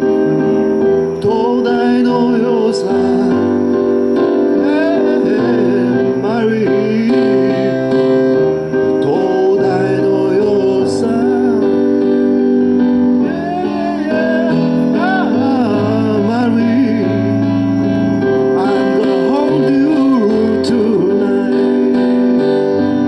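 Live pop ballad music in an instrumental break: sustained keyboard chords and a moving bass line under a bending, wavering lead melody.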